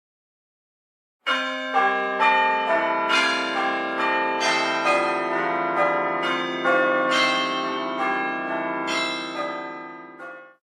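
iPhone 'Bell Tower' ringtone: a peal of church bells, many overlapping strikes that ring on. It starts about a second in and fades out near the end.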